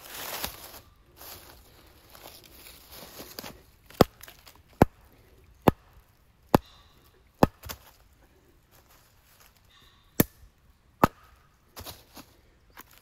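Wood being chopped: five sharp strikes about a second apart, a pause, then two more, after some rustling at the start.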